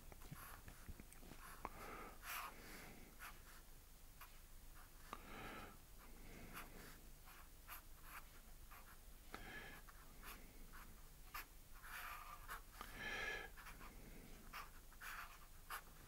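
Fineliner pen scratching faintly across paper in short, irregular strokes, with small pauses between them.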